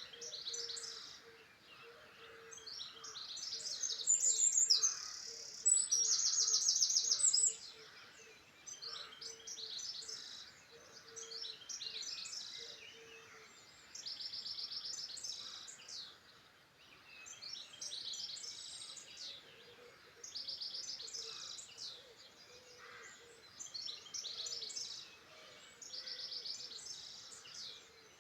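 Songbirds singing. Short phrases with rapid trills repeat every few seconds, and the loudest come around a quarter of the way in.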